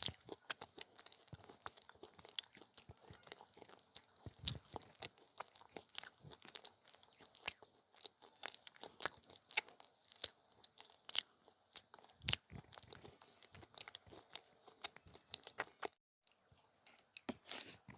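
A person biting and chewing brittle coloured clay pieces, giving a close, continuous run of sharp crunches and crackles, with a brief pause near the end.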